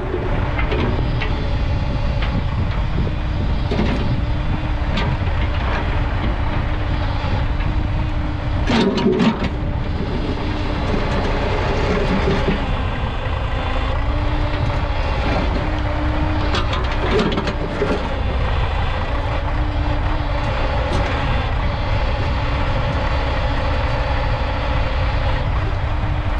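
YuMZ EO-2621 tractor excavator's diesel engine running steadily under working load, its note shifting now and then as the hydraulics work. A few sharp knocks sound over it, the loudest about a third and two thirds of the way through.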